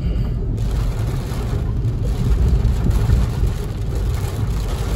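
Car driving on a rain-wet street, heard from inside the cabin: a steady low rumble of engine and tyres on the wet pavement.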